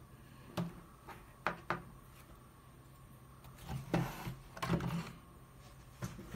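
Handling noise from a plastic VR headset and a smartphone: a few light separate clicks, then a cluster of plastic knocks and scrapes as the headset's hinged front cover is opened and the phone is moved over it, ending in a louder knock.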